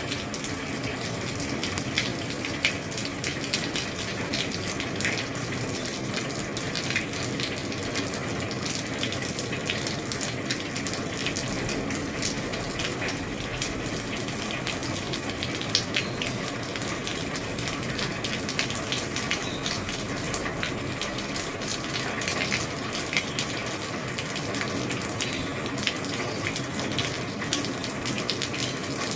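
Steady rain falling on a roof, a constant hiss of water with many small sharp drop ticks scattered through it.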